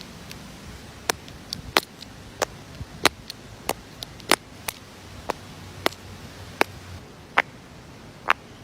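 A plastic fidget toy being clicked over and over: about a dozen sharp clicks, roughly one every two-thirds of a second, over a faint hiss.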